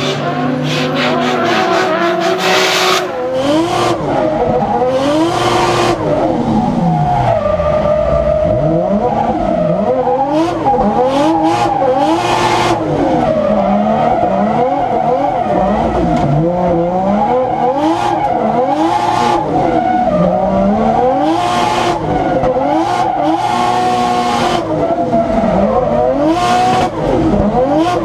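Nissan Silvia S15's swapped-in 1JZ-GTE turbocharged straight-six revving up and down hard in repeated sweeps while drifting, with tyres squealing. Short hissing bursts come between some of the revs.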